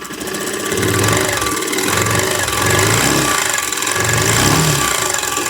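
Bajaj Pulsar 150 BS6 fuel-injected single-cylinder engine running with a loud jhar-jhar rattle from its timing (cam) chain. The chain has gone slack because the engine has been running low on oil.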